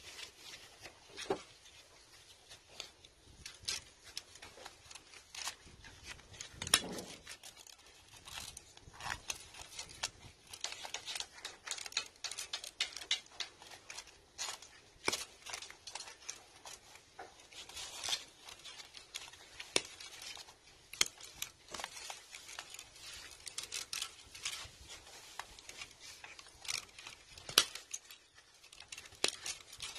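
Pliers cutting and pulling old copper winding wire out of a 3 hp swimming-pool pump motor's stator, the stripping stage of a rewind. It sounds as a run of irregular sharp snips and clicks, some much louder than others.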